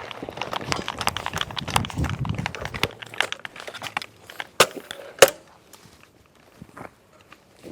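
Crunching and rustling of footsteps and gear moving through dry brush for about three seconds. About four and a half seconds in come two sharp clicks, a little over half a second apart.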